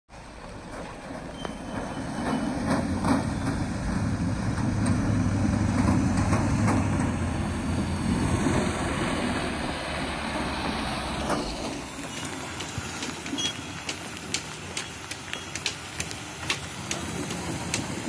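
Mahindra Bolero pickup's engine running as it drives through shallow river water, rising as it comes closer and fading again, with the wash of water around it. About twelve seconds in the sound cuts to rushing river water with scattered sharp clicks and knocks.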